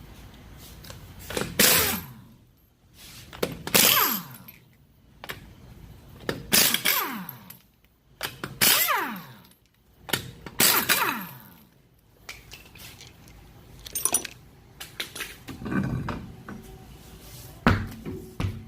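A power wrench with a 21mm socket loosening the wheel's lug nuts: five short bursts about two seconds apart, each ending in a falling whine as the tool spins down. A few lighter knocks follow near the end.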